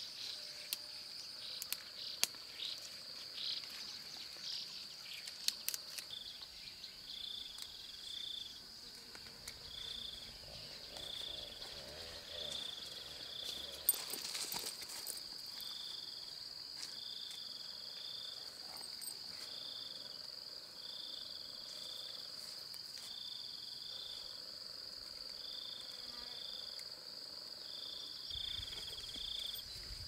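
Insects calling: a steady high-pitched drone with, from about six seconds in, a second insect's short chirps repeating about once every second or so. Scattered faint clicks and rustles come through, most in the first few seconds.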